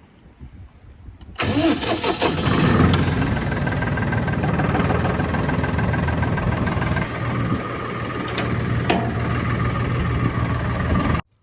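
An engine starting about a second in, its pitch shifting briefly as it catches, then idling steadily until it cuts off suddenly near the end.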